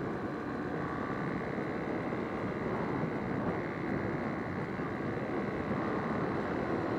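Motorcycle riding at a steady cruising speed: steady engine and road noise mixed with wind rushing over the microphone.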